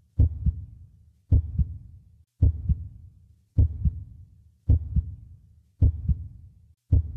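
Slow heartbeat sound effect: a deep double thump, lub-dub, repeating evenly about once every 1.1 seconds, seven beats in all.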